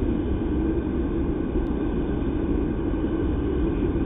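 Steady low outdoor rumble with a light hiss above it, with no distinct event in it.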